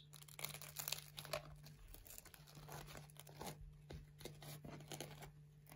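Freshly baked Ramazan pide flatbread being torn apart by hand: faint, irregular crackling and tearing of the crisp crust and soft crumb.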